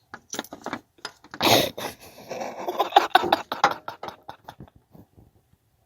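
Rapid metallic clicking and rattling from the broken AC compressor clutch pulley and its loose bearing balls being handled, with a louder scrape about a second and a half in. The clicks thin out toward the end.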